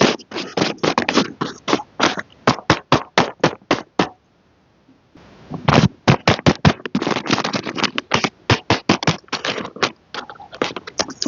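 Rapid, irregular clicks, taps and crackles of packaging being handled and opened, several a second, with a pause of about a second a little after the start.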